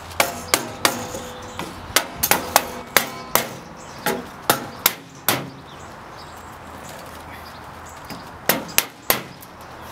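Claw hammer striking a block of wood held against a stainless steel chimney collar, tapping the collar down to seat it snug on a metal oven roof. A quick run of about a dozen sharp knocks, some with a short metallic ring, a pause of about three seconds, then three more knocks near the end.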